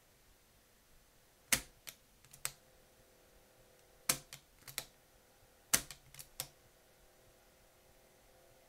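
Three clusters of sharp mechanical clicks, each of three or four clicks and spaced about two seconds apart, from the opened Sony TC-120 cassette recorder's transport mechanism as it is handled while powered. A faint steady hum from the running transport is heard between them.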